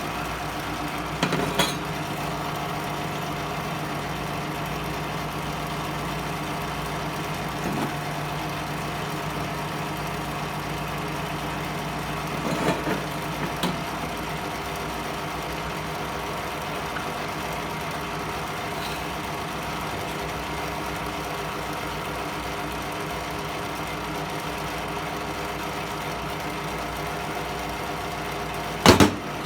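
Steady hum of a Miller Thunderbolt AC transformer stick welder ('buzz box'), with a few short knocks, the loudest near the end.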